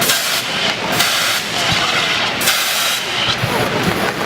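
Model volcano erupting: jets of steam or smoke hiss out in repeated loud bursts, several in a few seconds.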